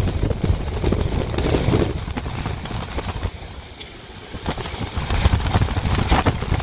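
Hurricane eyewall winds gusting against a car, with a deep rumble of wind on the microphone and rain and small debris rattling against the body in quick sharp hits. The gusts ease about halfway through and build again near the end.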